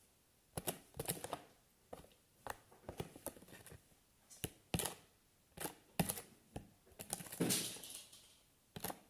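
Irregular light clicks and taps of small objects being handled, with a brief rustle about seven and a half seconds in.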